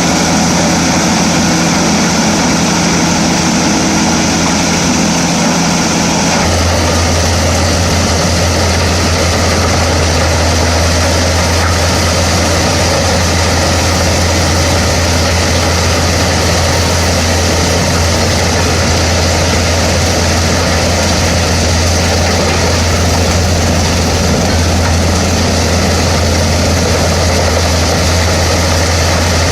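Large diesel engine of a drum wood chipper (IVECO C10ENTX) running steadily and loudly. About six seconds in the sound shifts: the higher hum drops out and a deeper, stronger hum takes over for the rest of the run.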